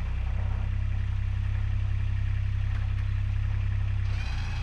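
Kubota compact tractor's diesel engine running steadily at a low, even note, which shifts slightly about four seconds in.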